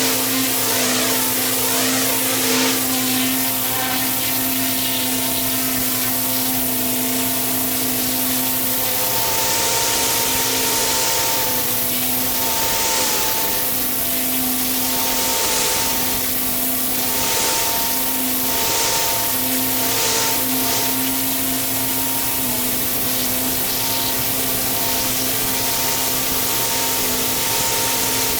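Pressure washer running steadily: a constant machine hum under the hiss of the water jet spraying the block paving, the hiss swelling and fading as the spray moves.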